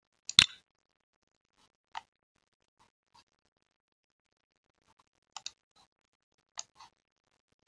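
Computer mouse clicking: a loud quick double click just after the start, then scattered fainter clicks, some in quick pairs, as blocks are picked and dragged.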